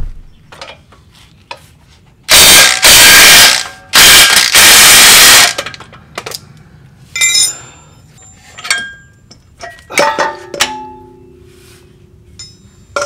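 Impact wrench run in two loud bursts of about a second and a half each, breaking loose the lower control arm joint bolts. These are followed by scattered metallic clicks and clinks of tools and hardware, and a metal piece ringing briefly near the end.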